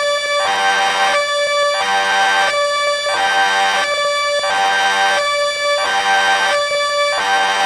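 Railway level-crossing warning siren sounding, a loud electronic tone that alternates between two notes, each held for under a second, in an even repeating cycle.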